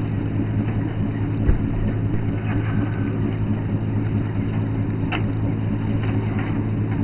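A boat's engine running at a steady, low hum, with a thump about a second and a half in and a short click about five seconds in as the trawl net is handled on deck.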